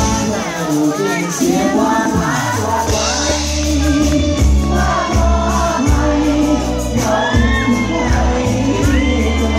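Band music with a lead vocalist singing over a heavy, repeating bass line.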